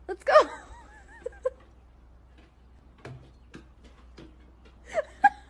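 Scattered light knocks of a golden retriever's paws and the stick it carries on wooden deck stairs. There are short high-pitched vocal cries near the start and again near the end, the one near the start the loudest.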